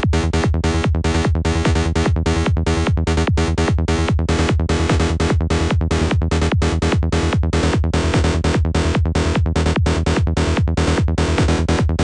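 FM lead patch on the Albino3 software synthesizer playing a fast run of short repeated notes, about four a second, with a sub oscillator mixed in under a strong low end.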